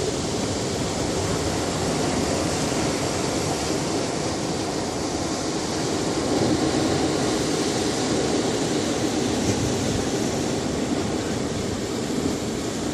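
Ocean waves washing on a beach: a steady wash of surf that swells slightly about halfway through.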